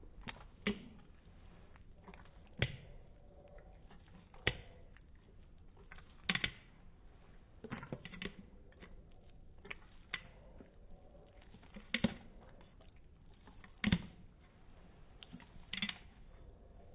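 Dog licking peanut butter off a metal spoon: a sharp wet click or smack about every two seconds, evenly spaced.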